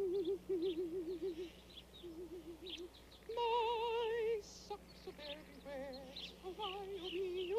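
Background music: a warbling lead melody with heavy, fast vibrato, with short chirping notes above it. The loudest note is held about three seconds in.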